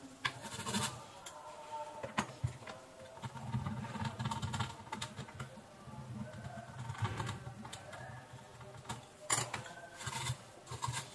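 Scattered light clicks and taps of a soldering iron and metal pick working on a circuit board's solder pads, with faint bird calls in the background.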